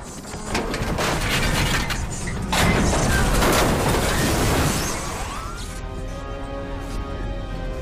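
Film sound effects of metal clattering and crashing, with glass-like shattering, over an orchestral score; after about five seconds the crashes die down and the music carries on alone.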